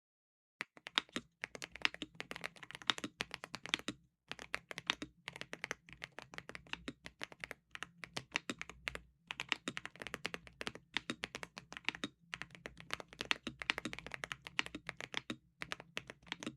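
Typing test on a Redragon Wyvern LCD Pro mechanical keyboard modded with tape, O-rings and extra foam: rapid key presses clicking in bursts of several seconds, with short pauses.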